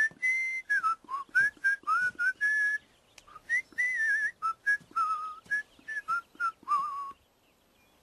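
A person whistling a melody: a run of short notes with a few held ones, the last note wavering before it stops about seven seconds in.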